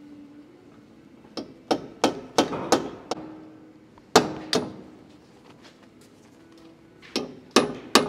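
Hammer blows on a steel punch driving at the front wheel bearing in a Mitsubishi Lancer's steel steering knuckle: sharp metal clanks that ring briefly, in three runs of five quick blows, then two, then three near the end. The bearing is stuck in the knuckle by rust.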